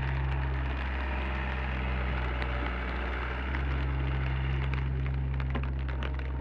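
Komatsu PC30 mini excavator's diesel engine running with a steady low drone. Between about one and three and a half seconds in, the engine note shifts and a hiss of working hydraulics swells. Scattered light ticks run throughout.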